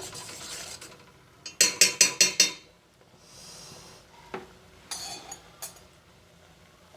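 Metal spoon clinking against a pot of herbal kahwa: a quick run of about six taps around two seconds in, a short hiss, then a few more single clinks later.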